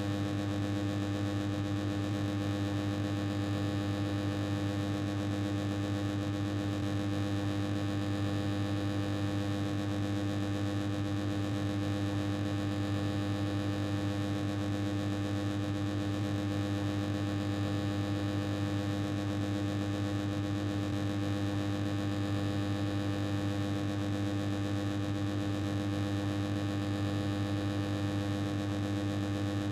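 Old, noisy air conditioner running: a steady, unvarying drone with a strong low hum, several higher humming tones above it, and a hissing rattle of noise.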